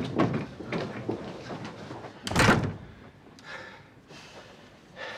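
A wooden hotel-room door slamming shut: one loud bang about two and a half seconds in.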